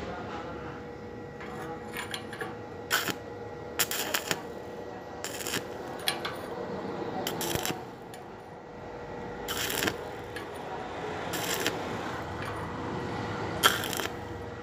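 Stick-welding arc crackling on a small steel pipe joint. Under it runs a steady hum, and sharp clicks come every second or two.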